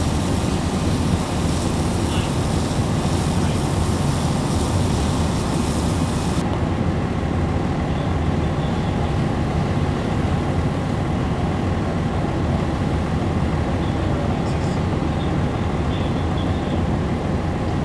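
Fire engines' diesel engines running steadily at a fire scene, a constant low rumble. A high hiss on top of it cuts off suddenly about six seconds in.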